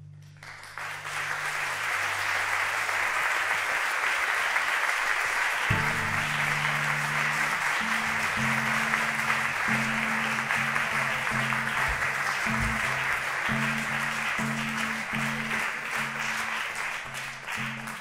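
Audience applauding after a song. From about six seconds in, a cello is plucked under the applause in a repeating line of low notes. The applause thins out near the end.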